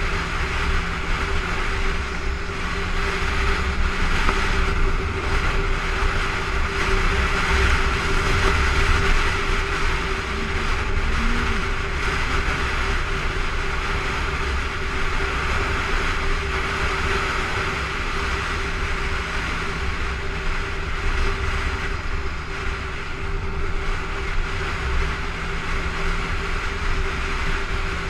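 Honda motorcycle running steadily on the freeway, a constant engine note under wind and road noise on the bike-mounted camera's microphone.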